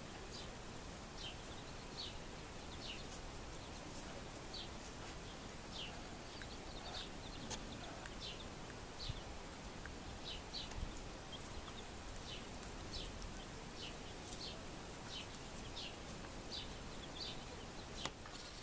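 Young chicks peeping: short high chirps that fall in pitch, scattered irregularly at about one or two a second, over a steady background hiss.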